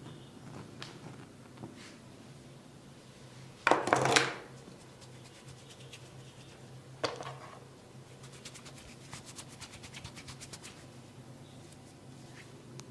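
Hands striking a person during a massage: a quick flurry of chopping blows about four seconds in, a single slap about three seconds later, then light, rapid tapping.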